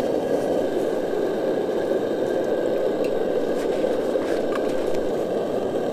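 MSR DragonFly pressurized liquid-fuel camp stove burning under a pot, a steady, even rushing noise.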